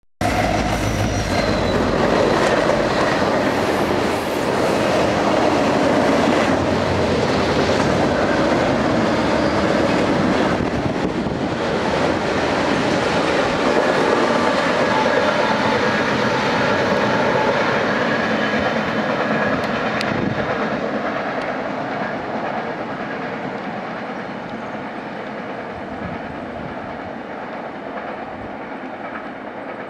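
Canadian National freight train passing close by. There is a low diesel locomotive rumble in the first few seconds, then the steady noise of the freight cars' wheels on the rails, fading gradually over the last ten seconds as the train moves away.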